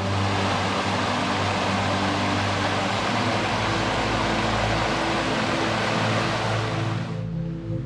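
Loud, steady rushing water that cuts off suddenly about seven seconds in, with soft background music of held low notes underneath.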